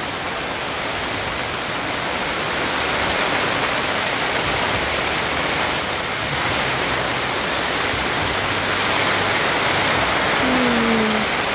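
Heavy rain falling in a steady, loud hiss.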